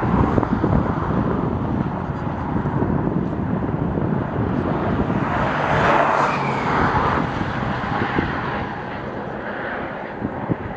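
Wind buffeting the microphone over steady outdoor background noise, swelling briefly about halfway through.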